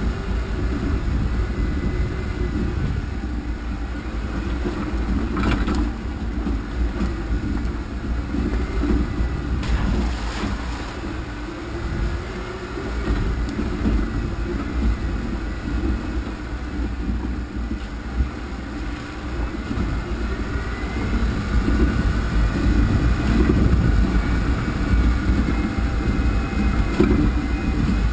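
Off-road vehicle driving slowly over a rough, rocky dirt track: the engine runs steadily with its note shifting under load, over a constant rumble from the rough ground. Two sharp knocks from bumps come about five and a half seconds in and about ten seconds in.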